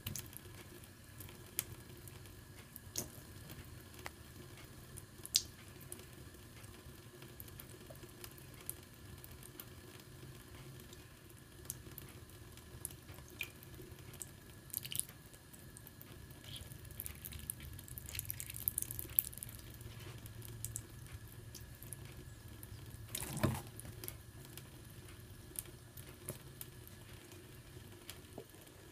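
Thin stream of tap water trickling into a bathroom sink, with small drips, splashes and ticks as a kitten laps at and paws the stream. A single louder knock about four-fifths of the way through.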